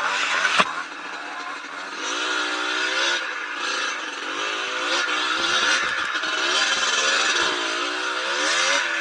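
Yamaha DT125's single-cylinder two-stroke engine revving up and down repeatedly as the throttle is worked on a muddy trail, with a sharp knock about half a second in.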